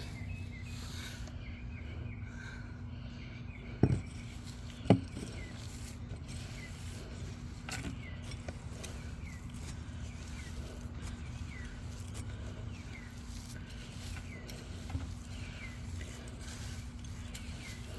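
Outdoor garden ambience with faint, short bird chirps recurring throughout, and two sharp knocks about four and five seconds in, likely from the potato digging.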